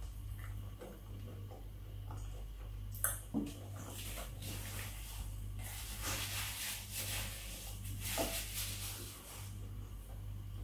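Close-miked eating sounds: small mouth and chewing noises with a couple of sharp clicks, then a paper napkin rustling against the mouth for several seconds in the second half, over a steady low electrical hum.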